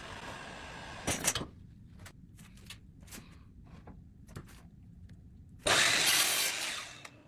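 Tool work on a wooden cricket bat: scattered light clicks and taps, then near the end a loud rough tool noise lasting about a second that fades out.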